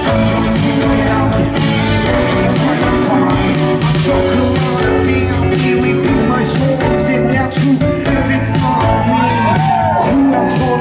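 Live band playing loudly, a singer on microphone over drums, electric guitar and keyboards.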